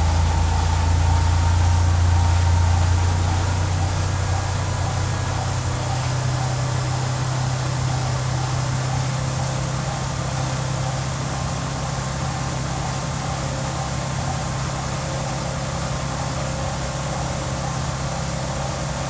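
Mitsubishi 3000GT VR4's 6G72 twin-turbo V6 idling steadily on its first run after an engine rebuild; its note steps up slightly and gets a little quieter after about four seconds.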